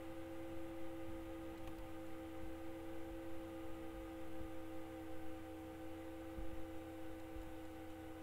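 Steady background hum made of several held tones, with a faint low rumble beneath.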